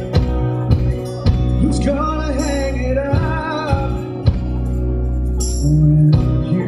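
Live acoustic rock band playing: a strummed acoustic guitar and a second guitar over held low notes, with a male lead vocal singing a line through the middle.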